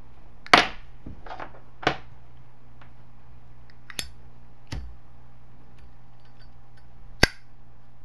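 Zippo lighter being handled in a flip trick: about six short, sharp metal clicks and clacks as it is flipped up, its lid broken open and snapped shut. The loudest clacks come about half a second in and near the end.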